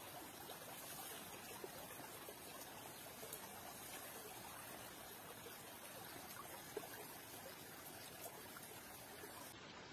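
Quiet outdoor background: a faint steady hiss with a few soft clicks.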